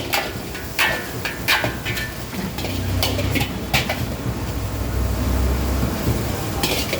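Metal spatula clinking and scraping against a pan while stir-frying egg fried rice: about ten sharp metallic knocks at uneven intervals, over a steady low rumble that swells in the middle.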